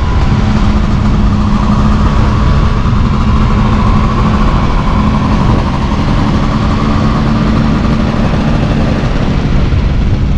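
Vespa scooter engine running steadily under a dense, continuous low rumble, with a steady hum that fades out about nine seconds in.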